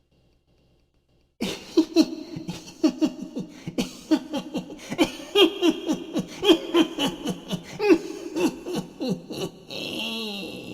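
A witch's cackling laugh: after a second and a half of silence, a rapid run of short 'ha' notes, about four a second, each dropping in pitch, ending near the end in a drawn-out breathy note.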